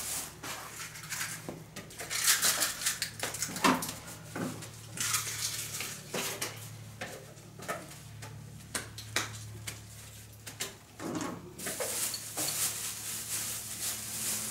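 Kitchen dishes, pans and cutlery clattering: a run of irregular clinks and knocks while food is handled, over a low steady hum.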